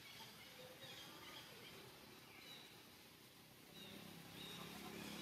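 Near silence: faint outdoor ambience with a few short, faint high chirps, and a low hum that comes in near the end.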